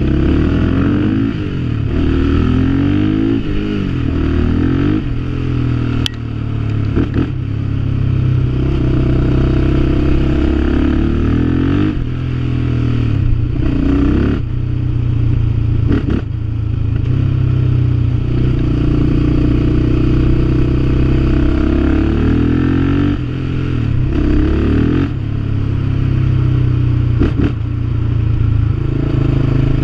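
Yamaha Raptor 700R quad's single-cylinder four-stroke engine running under way through its newly repaired exhaust, rising and falling in pitch again and again as the throttle is opened and closed. A few sharp clicks cut across it.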